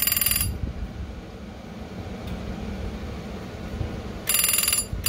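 Telephone ringer bell of a Western Electric model 302 ringing in short bursts, its clapper rattling rapidly against a non-original bell: one brief ring right at the start and another beginning about four seconds in. Low handling rumble fills the gap between them.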